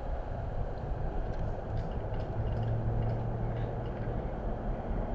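Car driving along a road: steady low engine and tyre rumble, with a firmer low hum for a couple of seconds mid-way.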